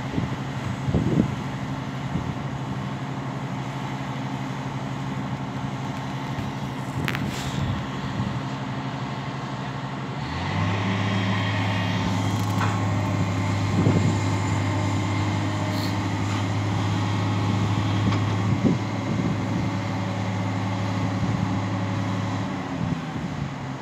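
Hitachi Zaxis 470LCH excavator's diesel engine running steadily as it works the boom and bucket. About ten seconds in the note steps lower and louder, with a high hydraulic whine, as the machine comes under load, then steps back up shortly before the end; a single sharp click sounds around seven seconds.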